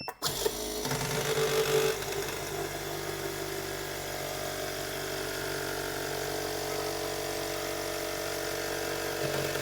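Phone screen de-bubbling machine starting its cycle: its air compressor kicks in right at the start and runs steadily with a loud whir and hum while it pressurises the screen chamber.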